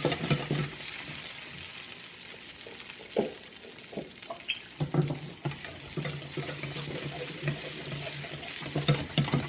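Gnocchi sizzling in butter in a nonstick frying pan, with a steady hiss. A few sharp knocks as the pan is shaken and tossed on the gas stove, about three seconds in and again near the end.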